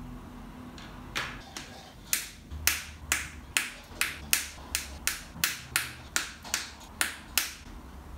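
Sharp metallic clicks from a length of spiral wire binding being worked in the hands: about fifteen clicks, two or three a second, starting about a second in and stopping shortly before the end.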